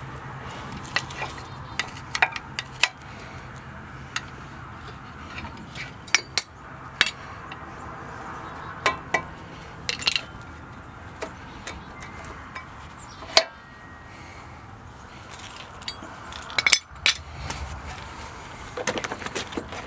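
Irregular metal clinks and taps as worn front brake pads are worked out of a Jeep Wrangler's caliper bracket, the sharpest knock about two-thirds of the way through.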